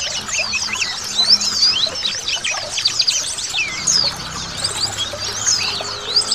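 A flock of white-eyes (pleci) chirping together, many quick high twittering calls overlapping without pause, over the steady trickle of running water.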